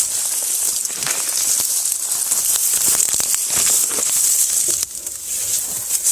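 Footsteps through dry sticks and brush: steady rustling with many small twig cracks, briefly quieter about five seconds in.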